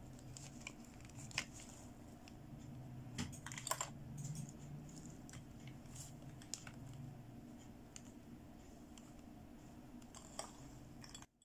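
Light clicks and taps of plastic as hands handle and pose a plastic fashion doll, a few sharper ones about a second and a half in and around four seconds in. A faint steady low hum sits underneath and cuts off just before the end.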